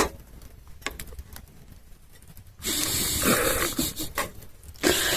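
A person's breathy puffs of air: a click at the start, one long breath about two and a half seconds in, and a shorter one near the end.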